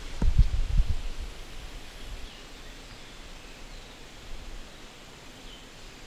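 Quiet outdoor field ambience with faint scattered high chirps. A few low thumps sound in the first second.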